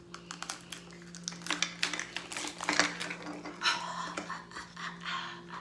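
Small plastic miniatures and their packaging being handled: a run of light clicks and taps with some crinkling, over a steady low hum.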